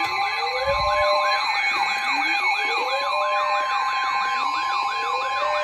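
Emergency alert tones: a steady alarm tone near 1 kHz, the kind NOAA Weather Radio sounds before a warning, with electronic siren sounds layered over it. The sirens are fast yelping sweeps about four a second and a slower wail rising every couple of seconds.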